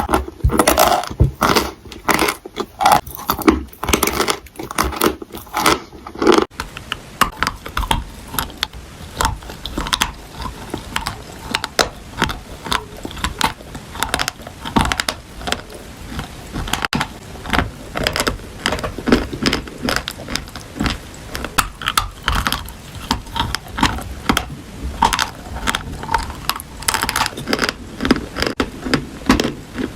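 Close-up crunching and chewing of crisp food: a dense, irregular run of crackly clicks. The strokes are heavier for the first six seconds or so, then finer and quicker.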